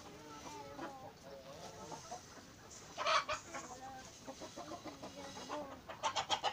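A flock of hens and roosters clucking softly, with a couple of louder calls about three seconds in and again near the end.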